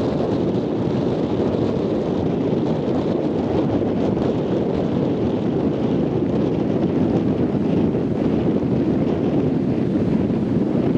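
Surf: small waves breaking in lines and washing up over a flat sandy beach, an even, unbroken rush, with wind buffeting the microphone.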